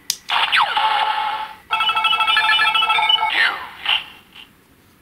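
A Kamen Rider Zi-O Ride Watch toy clicks as its button is pressed, then plays its electronic sound effect through its small speaker. A swooping tone is followed by a run of beeping chime notes, then another swoop and a few short blips, and the sequence starts again at the end.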